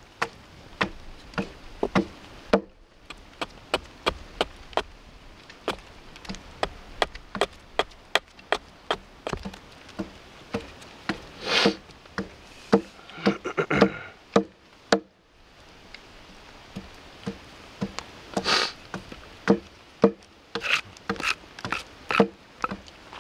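Axe chopping into a piece of wood on a stump chopping block, hewing a spoon blank: a run of sharp, irregular wooden knocks, about one or two a second, with a couple of longer, noisier strokes in the middle.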